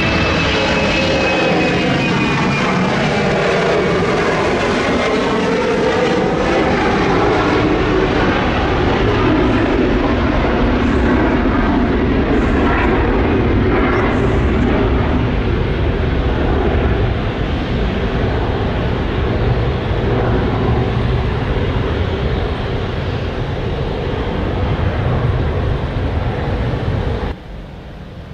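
Embraer E190's twin turbofan engines at takeoff thrust as the jet lifts off and climbs away: loud, steady jet engine noise with a falling whine in the first few seconds. It eases off gradually, then cuts off abruptly near the end.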